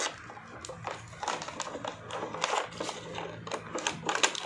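Parcel packaging being handled and opened by hand: an irregular run of crinkles, rustles and sharp clicks.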